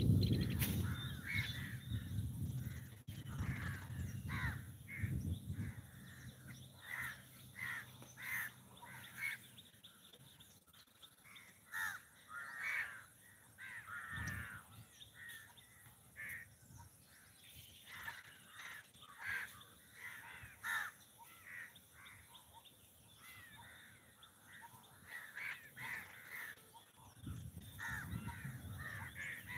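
Birds calling over and over in short calls. A low rumble runs through the first few seconds and comes back near the end.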